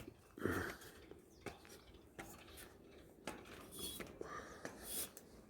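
Scattered light clinks and knocks with faint rustling, including one duller thud about half a second in.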